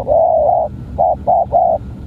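Spotted dove (tekukur) cooing: one long coo followed by three short, quickly repeated coos.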